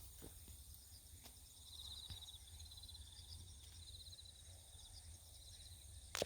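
Faint insect chirping: short pulsed trills coming in bursts about a second apart over a steady thin high-pitched drone, with a few light clicks.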